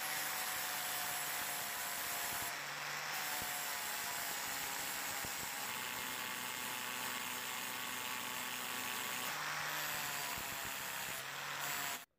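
Angle grinder running with its abrasive disc pressed on a brass dome, grinding down a rough lumpy patch on top: a steady grinding whir that changes tone slightly a few times as the pressure shifts, then cuts off abruptly near the end.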